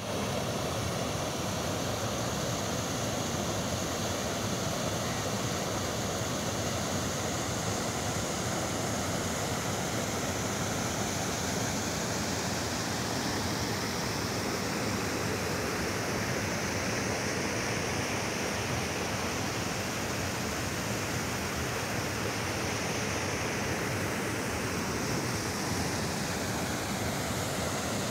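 Small river waterfall pouring over rock ledges into a pool: a steady rush of falling water.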